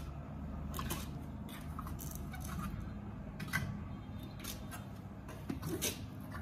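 Scattered light clicks and rustles of wire clothes hangers and damp clothes being handled and hung on a line, over a steady low background hum.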